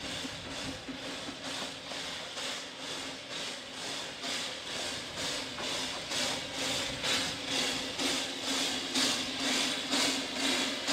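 Narrow-gauge steam tank locomotive moving slowly, its exhaust chuffing about twice a second and growing louder as it draws near, over a steady low hum.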